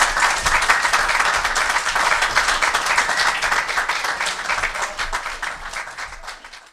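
Audience applauding, fading out gradually over the last few seconds.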